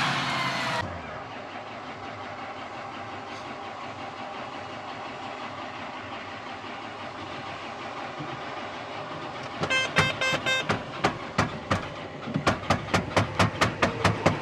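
Combine harvester running steadily as heard from inside its cab, after a brief louder burst of outdoor noise at the start. From about ten seconds in, a run of sharp, rapid clicks or beeps, about five a second near the end, is the loudest sound.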